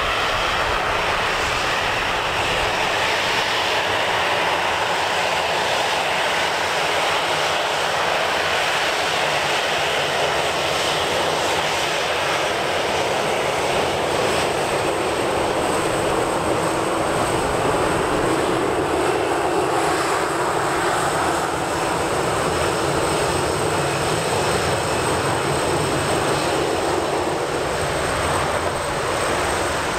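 Boeing 737-800's CFM56-7 jet engines running at low taxi power, a steady rushing jet noise with a faint high whine.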